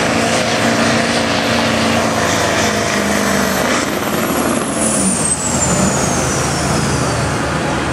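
Turbo-diesel pickup engine running hard under full load while dragging a weight-transfer pulling sled. About four seconds in, the engine's pull drops away and the turbocharger whistle winds down in a long falling whine as the power comes off at the end of the pull.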